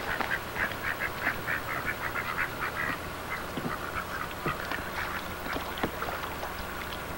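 Ducks quacking in a quick run of short calls, about four a second, which thins to scattered calls after about three seconds.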